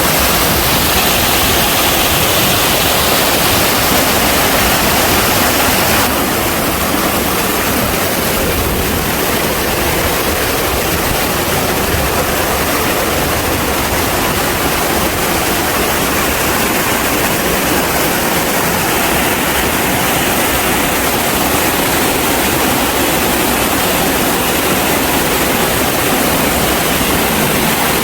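Rushing water of a mountain stream and waterfall: a loud, steady hiss of cascading water that steps down a little about six seconds in.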